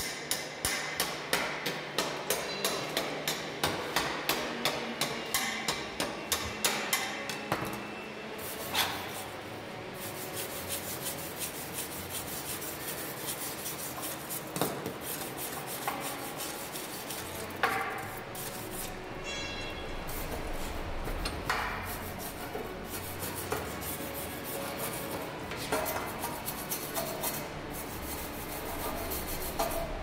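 Hand wire brush scrubbing a steel strut channel to clean the metal before painting. For about the first eight seconds it goes in sharp, regular strokes, about three a second; after that it becomes a steadier scratchy scrubbing with occasional clicks.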